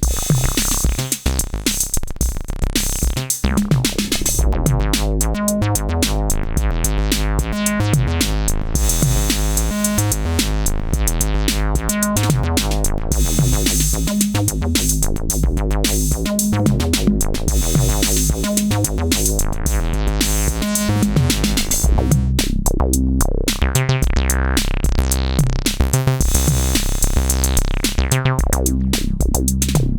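Acid bass line from an Elektron groovebox: a pitched synth bass pattern over a drum machine beat with a steady low kick.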